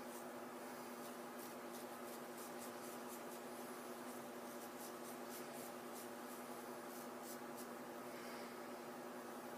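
Dashi straight razor scraping through lathered beard stubble in runs of short, quick strokes with brief pauses; the strokes stop about two seconds before the end. A steady low hum runs underneath.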